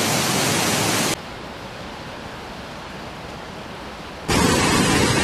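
Loud, steady rush of water. About a second in it cuts abruptly to a quieter, duller rush, and about four seconds in it cuts back to a loud rush.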